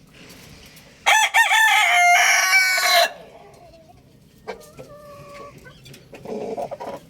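Rooster crowing once, a loud call of about two seconds starting a second in, with wavering notes at first and then a long held note. A shorter, fainter call follows a little later.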